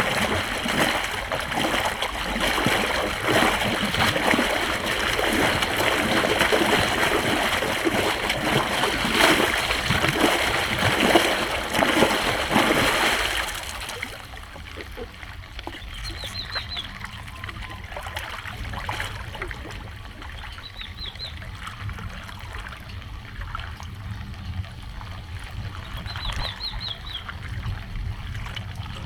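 Floodwater splashing and rushing loudly, dropping sharply to a quieter trickle about halfway through. A few short, high chirps come three times in the quieter part.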